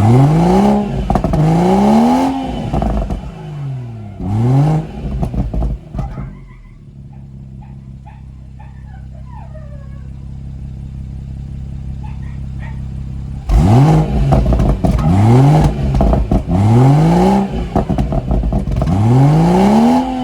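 BMW M140i's stock exhaust with its 3-litre B58 straight-six engine being blipped at standstill: several quick revs rising and falling in pitch, settling to a steady idle for several seconds in the middle, then another run of about four revs near the end.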